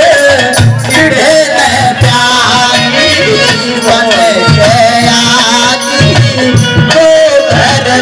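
Live Haryanvi ragni music through a PA: a hand drum beating under a wavering melody line, without sung words.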